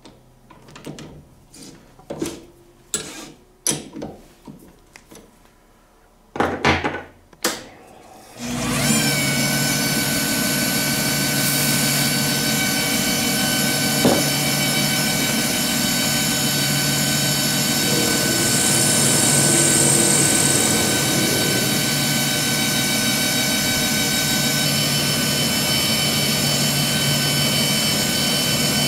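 Metal clicks and knocks as a lathe's three-jaw chuck is tightened with its chuck key. About eight seconds in, the lathe starts and runs steadily with a hum and a high whine while it turns and drills a 6061 aluminum bar.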